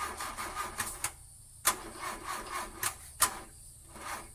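Rhythmic rasping strokes, several a second, broken by three sharp clicks.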